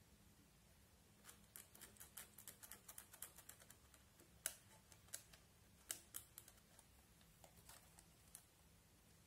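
Small plastic scoop scraping and picking pressed eyeshadow out of a plastic toy makeup palette: a quick run of faint, scratchy clicks starting about a second in, with a few sharper taps in the middle, thinning out near the end.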